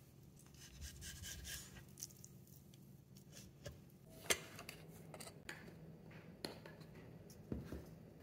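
Faint scraping and cutting of a kitchen knife slicing thin pounded beef on a wooden cutting board, with a few light sharp clicks in the second half.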